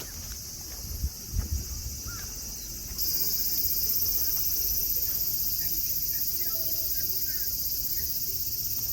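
Cicadas singing in a steady, high-pitched drone that suddenly grows louder about three seconds in. A few low thumps come about a second in.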